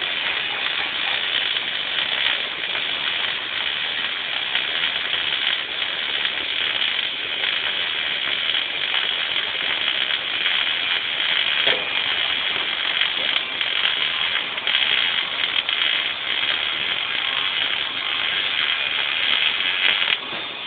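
Electric arc welding: the arc crackling steadily while a root pass is run on a joint.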